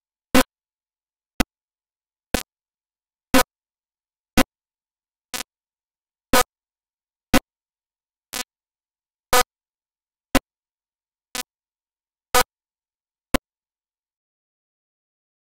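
A short blip of sound about once a second, fourteen in a row, with dead silence between them and none over the last two seconds.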